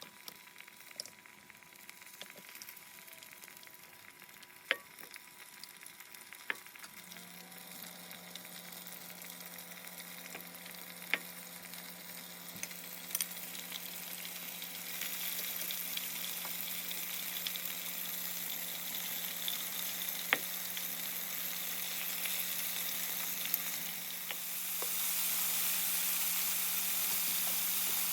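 Food sizzling in hot oil in a pan, the sizzle building steadily and jumping louder about 15 seconds in and again near 24 seconds, with scattered sharp clicks. A steady low hum comes in about 7 seconds in.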